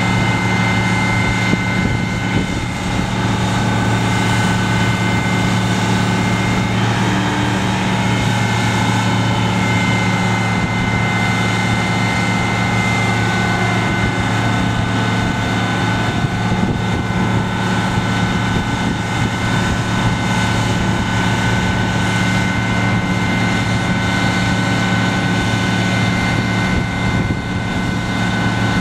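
Fire ladder truck's diesel engine and hydraulic pump running steadily as the aerial ladder is moved, a constant drone with a steady whine on top. The tone shifts briefly about seven seconds in, and a softer tone glides down and back up a few seconds later.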